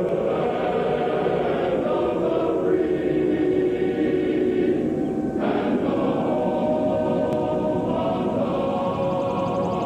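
A choir singing the national anthem in held chords, with a change of chord about halfway through.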